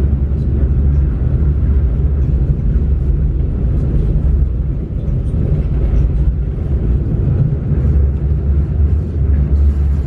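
Small mountain river flowing: a steady low rumble of running water.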